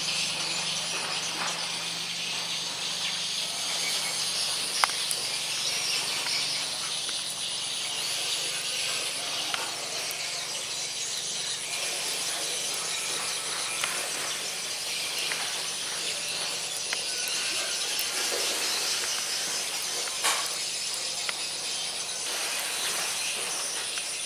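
Outdoor ambience dominated by a steady, high-pitched chorus of insects, with a few sharp clicks scattered through.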